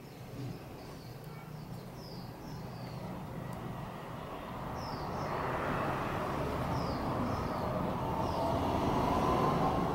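A distant engine, heard as a broad hum that grows steadily louder through the second half, with a faint tone rising slowly near the end. Short high chirps come now and then over it.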